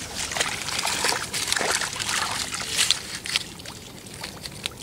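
Shallow muddy water trickling and sloshing, with scattered short rustles and clicks of wet grass being handled over a mud fish trap.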